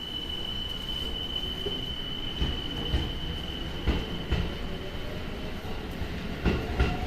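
Electric train rolling along the platform, its wheels knocking over rail joints in an uneven string of clacks, with a steady high-pitched squeal for the first few seconds.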